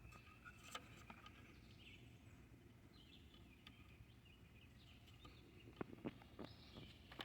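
Near silence: faint background with a few soft, high chirps and occasional light clicks.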